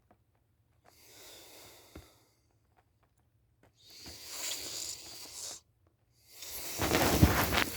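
A person sound asleep, breathing heavily and snoring: three slow breaths a couple of seconds each, with silent pauses between them. The last breath, starting near the end, is the loudest and carries a low rattling snore.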